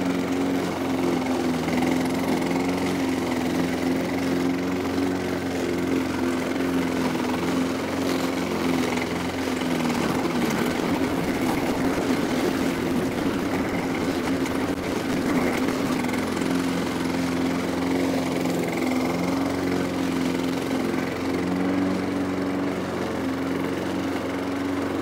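Honda HRD 536 self-propelled hydrostatic lawn mower running steadily under load, cutting tall, dense grass. Its engine note dips and wavers briefly about ten seconds in, then steadies.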